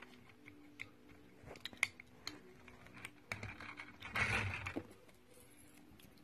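Lego plastic bricks being handled and pressed onto the model, a few sharp little clicks, then a louder rustling and scraping of a hand brushing close to the microphone about three to five seconds in.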